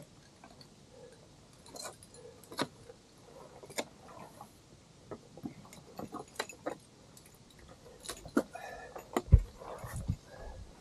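Metal ice-climbing gear clinking and knocking at irregular intervals, with a few heavier low thuds near the end.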